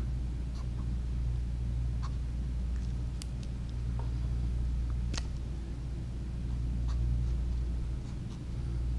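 Felt-tip markers drawing lines on a pad of lined paper, with a few light clicks and taps as the markers are handled, over a steady low hum.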